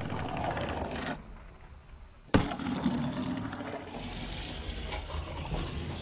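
Fingerboard wheels rolling on a hard surface, with one sharp clack of the board hitting down about two and a half seconds in, then more rolling and sliding.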